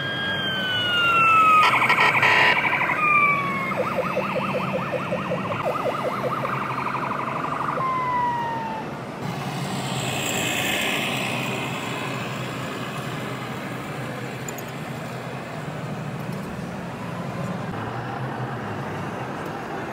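Electronic siren from a radio-controlled model fire truck: a few falling wails, then a rapid pulsing yelp for about four seconds, ending with one more falling wail. After that only steady background noise remains, with a brief hiss about ten seconds in.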